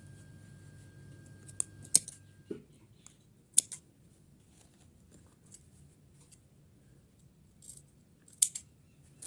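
Large steel tailor's shears snipping cloth: a few separate sharp snips and clicks, the loudest about two seconds in, another soon after three and a half seconds and a pair near the end.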